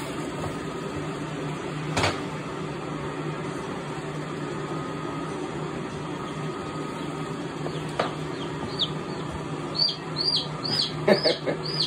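Baby chick peeping: a run of short, high, falling chirps, a few a second, starting about nine seconds in. Under it a steady low hum, with single knocks at about two and eight seconds in.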